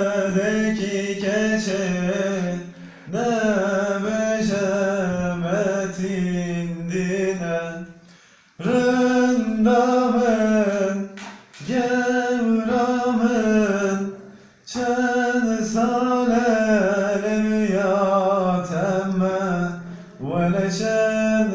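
A man singing unaccompanied, a slow melody of held notes that waver and bend, sung in long phrases with short pauses for breath.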